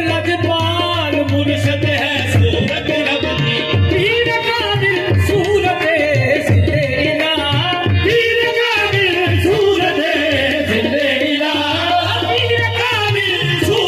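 Qawwali sung live: lead voices in long wavering melodic lines over harmoniums, driven by steady hand-drum beats.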